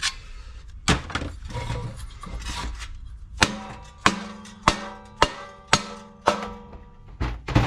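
Rubber mallet striking the Briggs & Stratton 550EX engine's crankcase, knocking it apart to free a bent crankshaft. One blow comes about a second in, then a run of about eight blows, about every half second, from halfway on. The casting rings after each blow.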